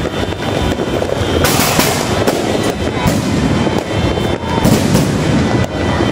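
Fireworks and firecrackers going off together: a continuous din with many irregular sharp bangs, several a second.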